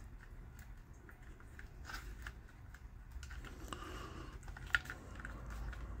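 Light plastic clicks and taps of a thumb pressing the buttons on a Honeywell programmable thermostat, with one sharper click a little before the end, over a faint low hum.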